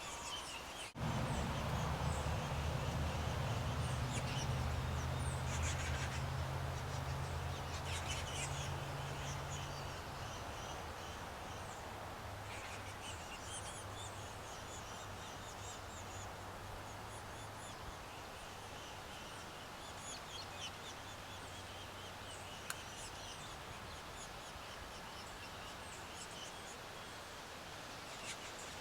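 Woodpecker nestlings' high-pitched begging chatter in repeated short bursts. A low droning hum starts suddenly about a second in and is the loudest sound for the first ten seconds, then fades.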